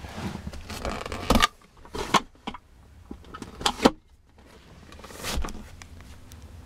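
Handling noise inside a car: a few sharp knocks and clicks with rustling in between, as a hand and the camera move over leather seats and the rear armrest, then a softer brushing sound near the end.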